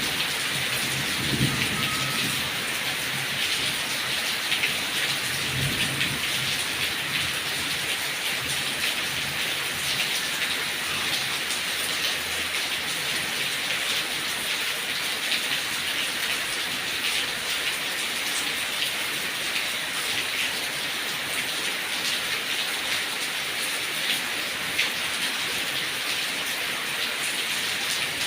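Heavy rain falling steadily on papaya leaves: a dense, even hiss with many small patters of drops. Two brief low rumbles come in the first few seconds.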